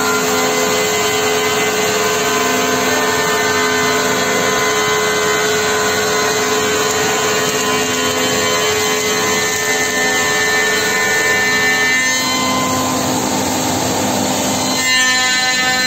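Four-spindle CNC wood machining center cutting: the router spindles run with a steady whine over the rushing noise of the cutters milling wooden parts. The pitch of the whine shifts about twelve seconds in and again about three seconds later.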